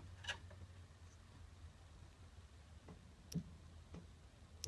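Faint, irregular clicks as a wire is touched against a terminal of the dual fuel tank switch circuit, arcing as it makes and breaks contact, over a low steady hum. The owner takes this poorly seated wire for the cause of the fuel selector valve cutting out.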